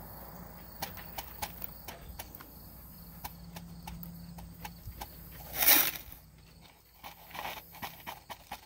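Small stones and shells clicking as they are shaken from a plastic tub and dropped into foil pouches of paydirt: scattered light clicks, with one louder rattle a little past the middle.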